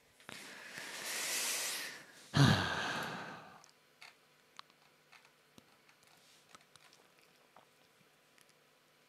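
A person draws a long breath in, then lets out a heavy sigh that starts with a low voiced groan and trails off into breath. A few faint clicks follow.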